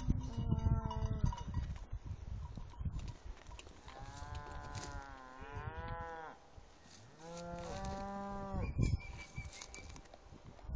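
Cows mooing in drawn-out calls: a short one at the start, a long one from about four seconds in, and another just after seven seconds.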